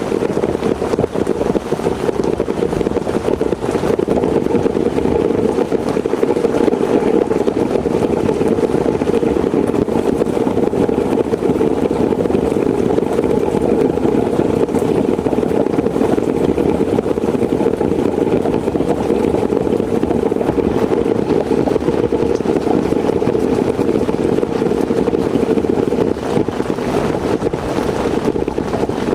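Heavy rain falling steadily, a dense, even patter with no let-up.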